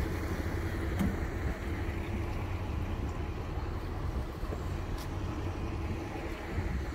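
Diesel bus engine idling, a steady low rumble with a faint hum. Two light clicks, about a second in and near five seconds.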